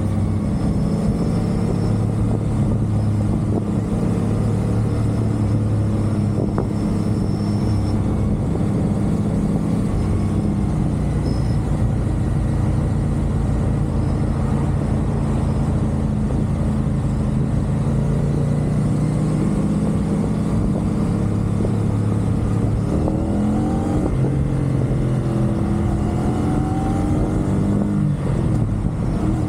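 CFMoto 450SR sports bike's parallel-twin engine running steadily at expressway speed, with wind and road noise; near the end the revs drop and rise again a few times.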